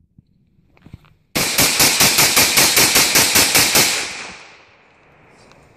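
AR-15 rifle fired in a rapid string of about seventeen shots, roughly seven a second, starting about a second and a half in and lasting about two and a half seconds; the echo of the last shots fades away over about half a second.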